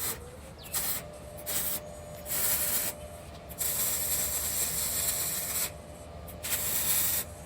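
Repeated bursts of harsh, hissing, rasping noise from tool work on steel, six bursts of uneven length, the longest lasting about two seconds.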